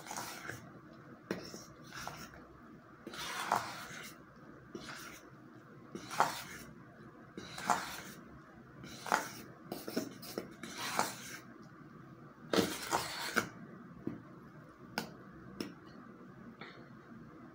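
Metal utensil scraping and clinking against a stainless steel bowl while stirring thick, lumpy pancake batter, in separate strokes about every second or so, with one longer, louder scrape about two-thirds of the way through.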